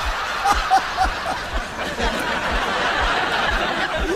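Two men laughing hard together, with snickers and breathy chuckles. A steady low thumping beat runs underneath.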